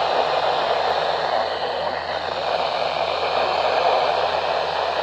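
Steady radio static hiss from a weak weather-radio signal, with the National Weather Service announcer's voice faint and buried under the noise.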